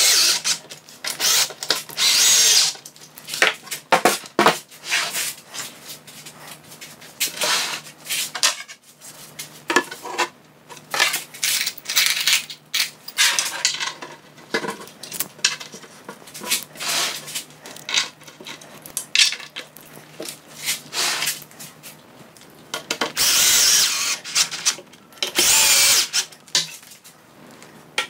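Cordless drill-driver driving confirmat screws into 18 mm chipboard cabinet panels in repeated short bursts, with two longer runs near the end. Knocks and rubbing come from the panels being handled and fitted between screws.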